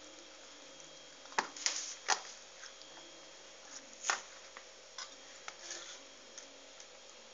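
Cabbage rolls being packed by hand into a metal pot: a scatter of short, sharp taps and clicks against the pot with soft rustling of the leaves, the loudest taps about a second and a half in and again near two seconds and four seconds in.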